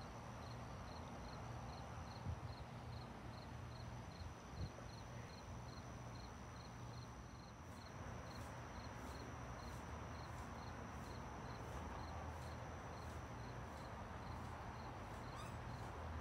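Insects chirping: a steady high trill and a rhythmic chirp about two and a half times a second, joined about halfway in by a second, higher pulsing call a little over once a second, over a low steady hum.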